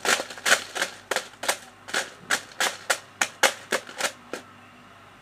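Dry Maggi instant noodles being broken up by hand in a plastic tub: a run of sharp, crisp snaps, about three a second, that stops about four and a half seconds in.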